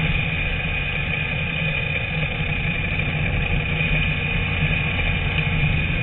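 Onboard engine sound of a TVR Tuscan Challenge race car running steadily, heard from inside the car, with a deep rumble under a steady high whine.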